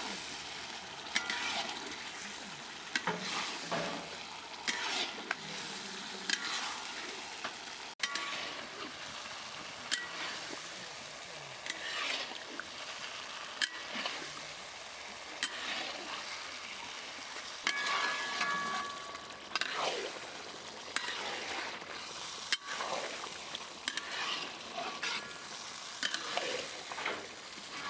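Marinated chicken sizzling in hot oil and spice masala in a pan while a metal spatula stirs and scrapes it, with a scraping stroke every second or two and now and then a brief metallic ring.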